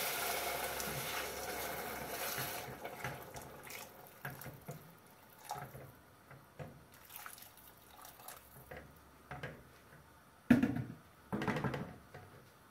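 Boiled water poured from a kettle into a steel pot of fried meat, onion and tomato and pepper paste, splashing for the first two and a half seconds. Then a wooden spoon stirs the thin sauce with soft scrapes, and two louder bumps come near the end.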